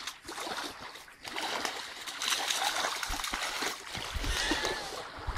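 Small lake waves lapping and splashing against the shore.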